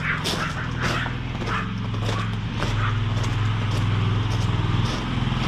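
Chinese mini skid steer's engine running steadily while it hauls gravel, a little louder from about halfway. A dog barks repeatedly over the first half.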